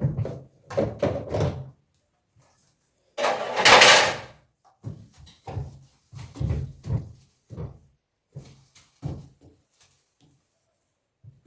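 Household cleaning: a run of uneven knocks and thumps as things are handled and moved, with one loud scraping swish lasting about a second, a little over three seconds in.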